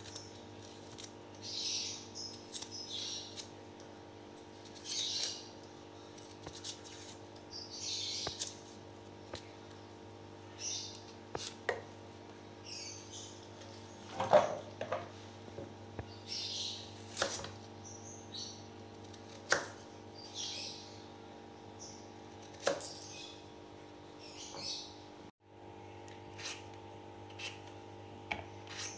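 Kitchen knife peeling jicama: repeated short scraping strokes of the blade through the skin, with occasional sharp knocks of the knife on a wooden cutting board, the loudest about halfway through. A steady hum runs underneath.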